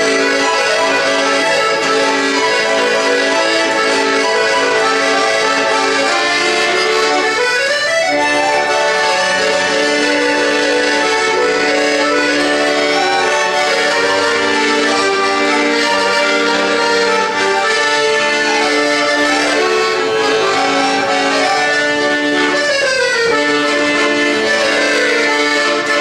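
Solo piano accordion playing a melody over sustained chords, with a quick rising run about eight seconds in and falling runs near the end.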